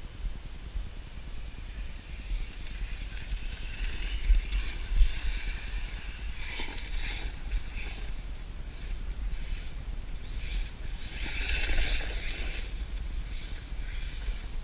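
Small RC car's sensorless brushless motor (Hobbywing 3300 kV) driven on dirt in short throttle bursts: a high whine that sweeps up several times, and a stretch of louder rushing and crunching near the end as the car passes close. A low rumble on the microphone runs underneath.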